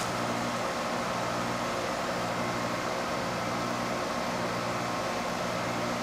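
Goodman DSZC18 heat pump outdoor unit running steadily in heating mode: a steady hum of several even tones from its Copeland scroll compressor under the even rush of the condenser fan. It runs very quiet, the compressor not labouring.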